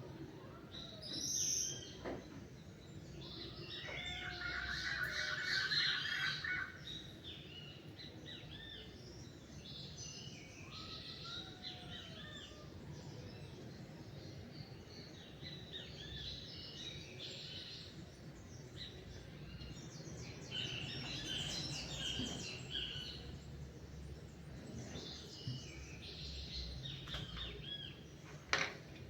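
Several songbirds singing and chirping in a dawn chorus, with a loud rapid trill a few seconds in, over a steady low background hum.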